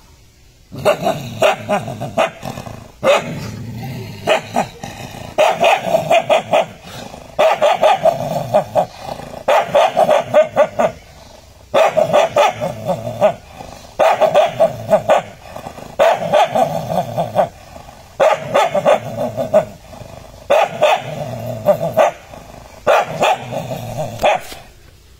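Stray dogs barking at their own reflection in a mirror, taking it for another dog: rapid bouts of barking about every two seconds, with low growling between the bouts.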